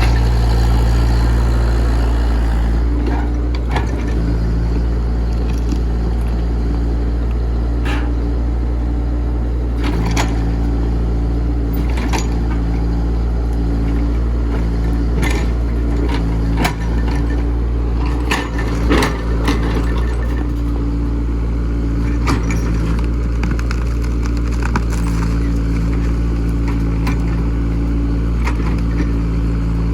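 Diesel engine of a Komatsu PC68 excavator running steadily, with scattered knocks and clanks of the machine working and a cluster of knocks about two-thirds of the way through.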